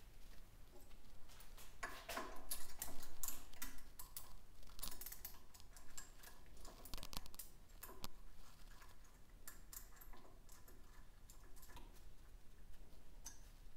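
Light clicks and metallic clinks of small brake-lever parts being handled and fitted onto a handlebar, busiest about two to three seconds in, with a few sharp clicks later on.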